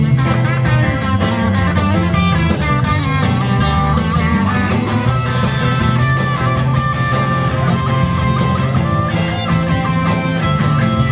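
Live rock band playing an instrumental passage with no singing: drums, bass, electric and acoustic guitars, with long held guitar notes riding over a steady bass line.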